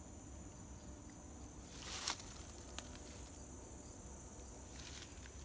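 Steady, high-pitched chorus of insects such as crickets, with a brief rustle of dry leaf litter underfoot about two seconds in and a smaller one near the end.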